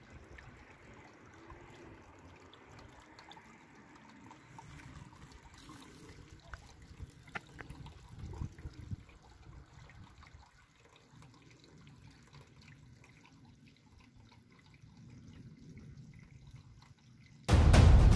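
Faint trickle of water from a spring-fed fountain, with a few small drips and knocks. Loud music starts abruptly near the end.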